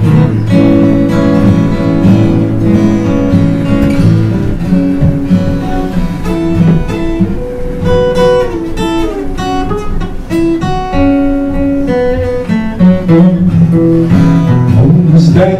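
Two acoustic guitars playing an instrumental break: strummed chords throughout, with a picked single-note melody moving over them through the middle.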